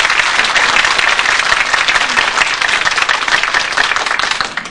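A large audience applauding, many hands clapping at once; the applause dies away near the end.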